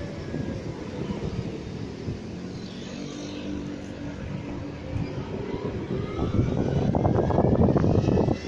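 Motorbike engine heard while riding, its whine falling as it slows in the first seconds, then rising again as it speeds up near the end, with wind buffeting the microphone.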